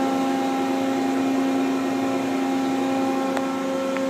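Steady mechanical hum with a strong low tone and several higher overtones, unchanging, with a faint click about three seconds in.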